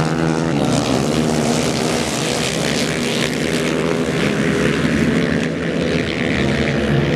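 A pack of racing motorcycles on an ice track, several engines revving up and down together as they pass, over a steady hiss.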